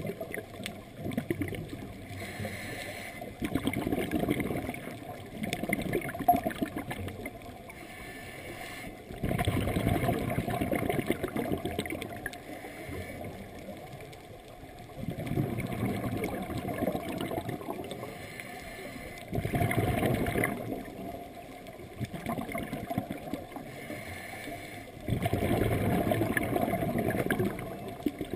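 Scuba regulator exhaust bubbles from the diver carrying the camera: low gurgling bursts of a few seconds each, one per exhaled breath, coming about every five seconds with quieter stretches between.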